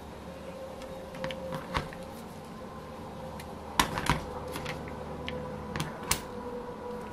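Scattered clicks and light knocks from an O.S. FF-240 Pegasus metal model engine being handled and turned over by hand on a work mat. A pair of sharper knocks comes around the middle and another near the end.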